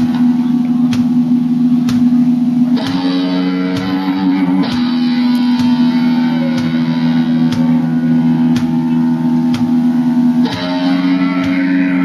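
Music: guitar over a low sustained tone, with a sharp beat about once a second.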